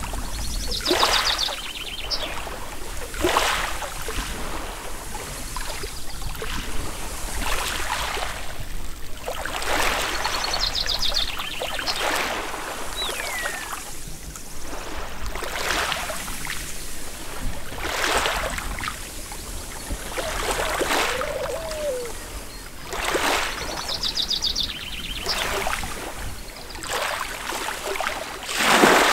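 Small lake waves washing up on a pebble shore, surging every two to three seconds, with a few bird chirps.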